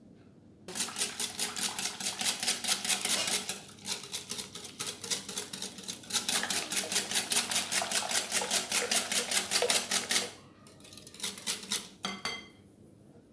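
Wire whisk beating an egg-and-milk custard mixture in a glass bowl: a fast, even ticking of the wires against the glass, several strokes a second. It breaks off briefly about four seconds in and stops about ten seconds in, with a few last strokes near the end.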